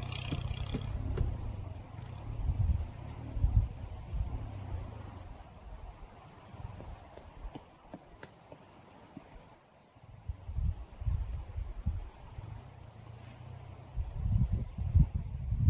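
Wind buffeting the microphone in uneven low gusts, easing for a couple of seconds past the middle, over a steady high-pitched insect trill.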